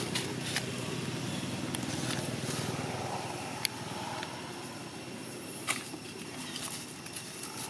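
Dry leaf litter crackling now and then under macaques' feet, with a sharp snap a little past the middle, over a steady low rumble that sounds like a vehicle engine running.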